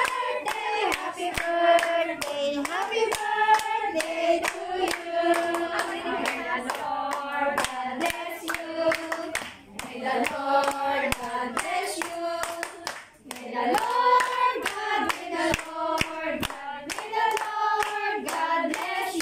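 A group of women singing together while clapping their hands in a steady rhythm, with sharp claps close to the microphone.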